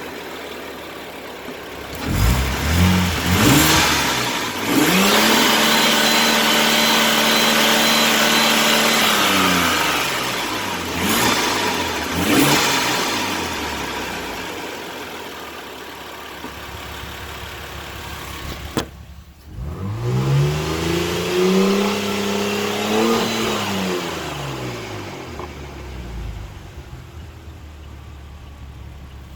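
Saab 9-3 Turbo X's turbocharged V6 running with a Seafoam treatment in it and being revved: a few quick blips, a rev held for about five seconds, more blips, a brief drop-out, then one more rev rising and falling before it settles back toward idle.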